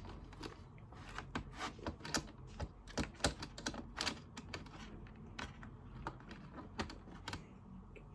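Quick, irregular run of light clicks and taps from handling a small toy game and its pieces, thinning out near the end.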